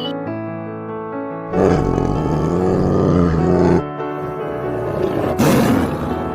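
Tiger roaring twice over background music: a long roar of about two seconds starting a second and a half in, then a shorter one about five seconds in.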